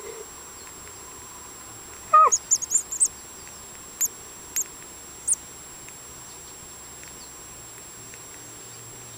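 Baby birds peeping: a short lower call falling in pitch about two seconds in, then a quick run of high chirps and three single high peeps a little over half a second apart, over a steady hiss.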